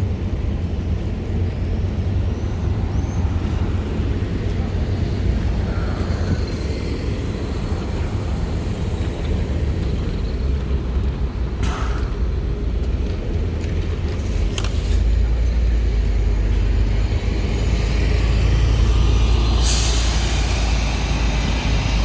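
LiAZ-5292.71 gas-powered city bus heard from inside, a steady low rumble of the running bus throughout. Two short hisses of released compressed air come around twelve and fifteen seconds in, and a longer air hiss starts near the end, typical of the bus's pneumatic brakes or doors.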